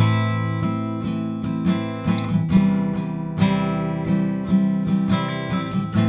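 Steel-string acoustic guitar strummed in a steady rhythm of full, ringing chords, recorded close on an AKG Perception 200 condenser microphone with no bass roll-off and no pad.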